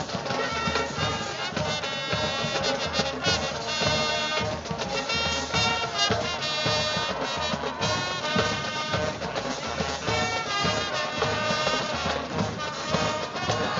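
High school marching band playing, with brass instruments carrying held melody notes over a steady beat.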